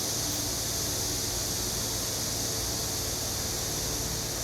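Steady rushing of a wood fire burning in a multi-chamber wood-fired kiln during firing, an even hiss over a low rumble with no sudden cracks or knocks.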